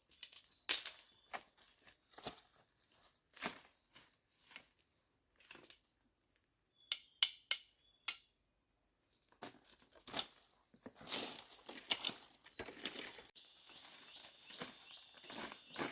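Insects calling in a steady high drone, with scattered sharp knocks and clicks over it. About three-quarters of the way through, the drone gives way to a lower steady insect tone.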